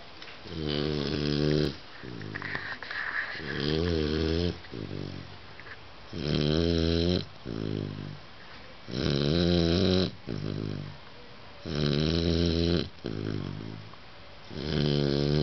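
Loud snoring: six loud snores, each about a second long and roughly three seconds apart, with softer breaths between them.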